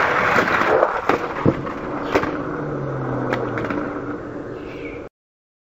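Die-cast Hot Wheels cars rolling fast down a long plastic downhill track, a steady rolling rattle with a few sharp clicks over it. It cuts off suddenly about five seconds in.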